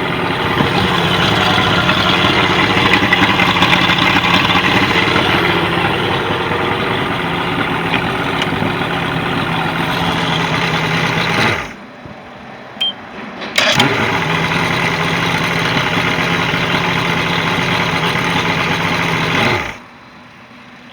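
Mercury 150 hp outboard motor running steadily, then shut off about twelve seconds in; after a click it starts again within a couple of seconds, runs evenly, and is shut off again near the end.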